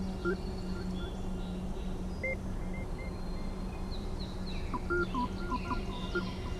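Ambient sound-art recording: a steady low hum under scattered short chirping tones and bird-like calls, with a cluster of chirps from about five seconds in.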